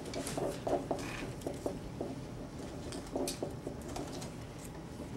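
Scattered light taps, scratches and rustles from a room of people writing with pens on post-it notes.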